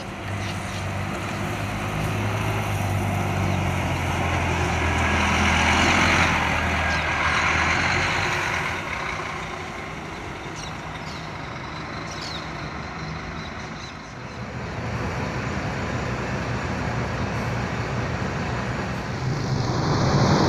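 City buses running and pulling past, with a low engine drone that swells and fades over the first several seconds and a few short high squeaks in the middle, then steady street traffic noise.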